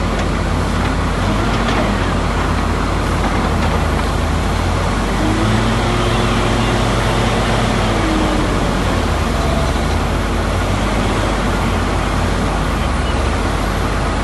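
Heavy diesel engine of a log-loading machine running steadily, its pitch rising and shifting for a few seconds in the middle as it works under load.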